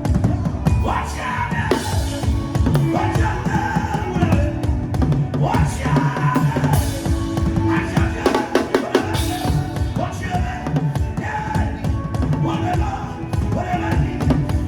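Drum music: busy, rapid drumming with a wavering melody line over it.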